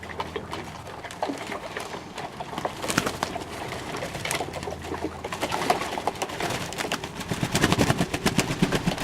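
Fantail pigeons cooing in a loft, with scattered clicks and taps among the birds that grow busier near the end. A low steady hum stops about five seconds in.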